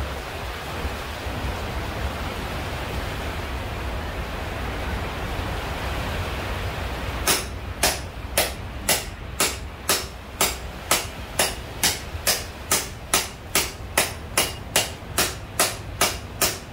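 Blacksmith's hand hammer striking hot steel on an anvil, a steady run of blows about two a second, each with a bright metallic ring, starting about seven seconds in. Before the hammering there is only a steady background hiss.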